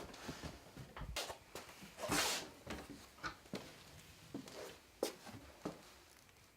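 Objects being handled: a string of light knocks and clicks, with a short rustle about two seconds in.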